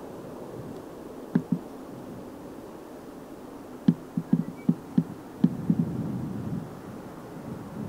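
Irregular short, dull low thumps, a pair about a second and a half in and a cluster of six or so between four and six seconds in, over a faint steady rumble.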